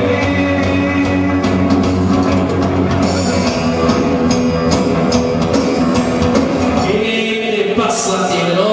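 Loud rock and roll music with singing, drums and guitar.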